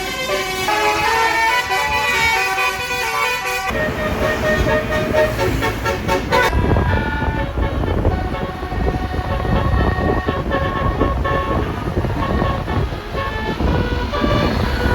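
Bus telolet horns, basuri-type multi-trumpet air horns on the roof, playing a quick tune of several notes. About four seconds in the tune breaks off suddenly. Deeper engine and street noise takes over, with horn notes still sounding over it.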